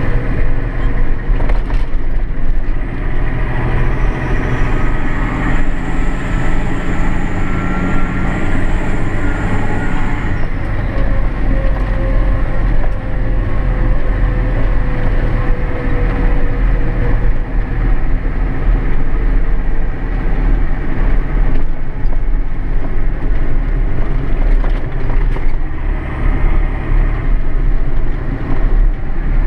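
Massey Ferguson 6499 tractor's six-cylinder diesel engine running steadily, heard from inside the cab, with faint whines drifting slowly in pitch.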